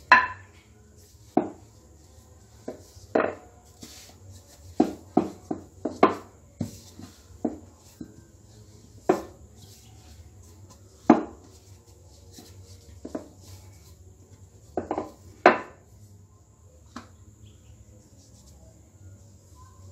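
Wooden rolling pin knocking and rolling on a granite countertop as dough is rolled out: irregular sharp knocks, some in quick runs of three or four.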